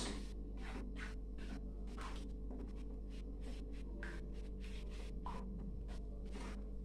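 Spatula stirring thick spaghetti sauce in a frying pan: a run of irregular scrapes and light clicks against the pan, over a steady low hum.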